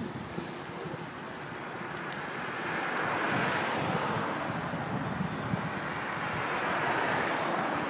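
Passing road traffic: a rush of tyre and engine noise that swells about three seconds in and again near the end.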